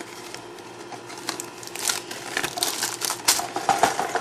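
Lego set packaging being opened and handled: plastic crinkling with many small clicks and rattles, getting busier and louder about halfway through.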